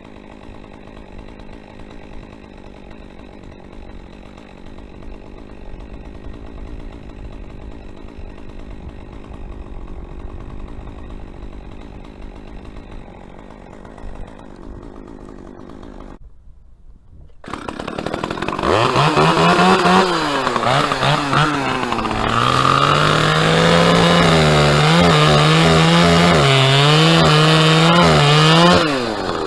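Chainsaw engine running faint and muffled for the first half, then, after a brief silent gap, loud and revving: its pitch drops and climbs a few times before holding high and steady at full throttle, cutting off near the end.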